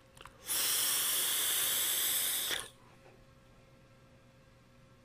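Long draw on an Innokin Axiom sub-ohm tank with a 0.5-ohm coil firing at 35 watts: a steady airy hiss for about two seconds, which stops abruptly. Near-quiet exhale follows.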